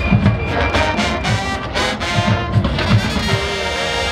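HBCU-style marching band playing live: trumpets, mellophones and sousaphones over a drumline, with repeated bass drum hits under the brass.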